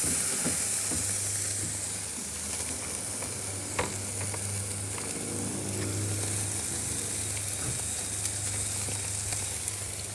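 Food frying in hot oil on a cooking plate: a steady sizzle with scattered small crackles and one sharper pop about four seconds in, over a steady low hum.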